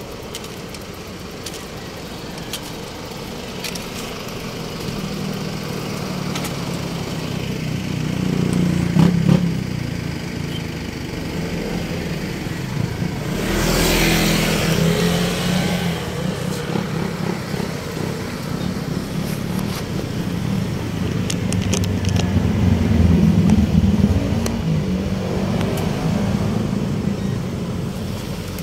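Road traffic: motor vehicles running and passing close by, their engine sound swelling about a third of the way in and again near the end, with a brief loud rush of noise about halfway through.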